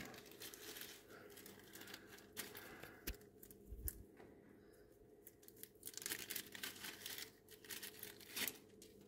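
Faint crinkling and rustling of handling, with scattered light clicks and a soft low thump about four seconds in.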